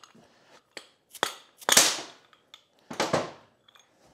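Hand tools and metal parts being handled on the workbench: a few sharp clicks about a second in, then two short scraping rustles, the louder one about two seconds in and another near three seconds.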